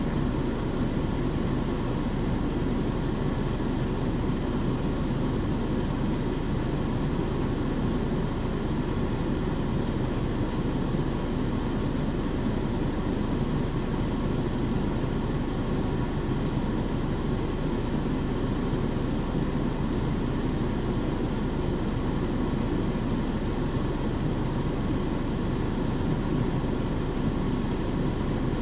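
Steady running noise of a KC-UA460HSN city bus, a Nissan Diesel UA chassis with a Fuji Heavy Industries 7E body, heard from the passenger cabin: an even low diesel rumble with no marked change in pitch or level.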